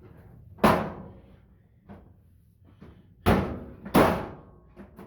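Three hard slams on a Samsung clothes dryer's sheet-metal cabinet, each ringing briefly; the last two come close together.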